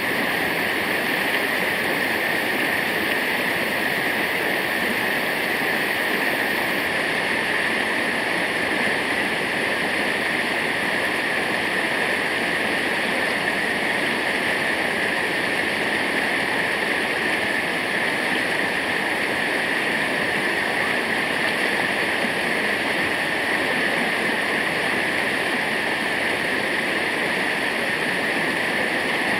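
Waterfall: water falling and rushing in a steady, unbroken hiss with no separate splashes or breaks.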